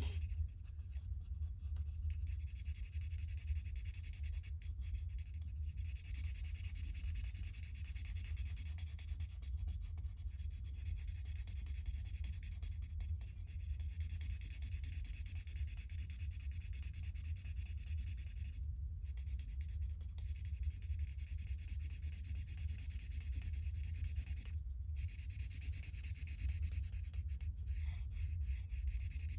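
Steady scratchy strokes of colouring on paper, broken by a few brief pauses, over a low steady hum.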